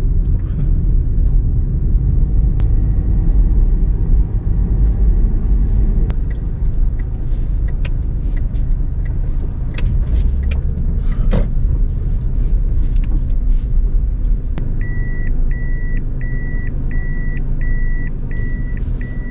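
Car cabin noise while driving: a steady low rumble of engine and tyres on the road, with scattered light ticks and knocks. Near the end the car's warning chime starts beeping, about three beeps every two seconds.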